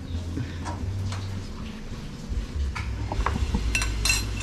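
Cooking utensils tapping and clicking against cookware, with a quick run of sharp, ringing clinks near the end, over a steady low hum.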